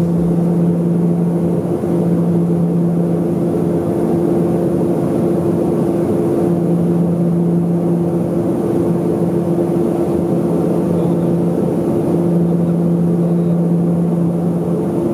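Turboprop airliner in cruise heard from inside the cabin: a steady engine and propeller drone with a constant hum and a lower hum that swells and fades every few seconds.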